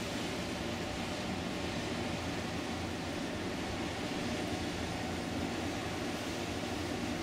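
Steady drone of river-ship engines and machinery: a low hum under an even hiss of wind and water.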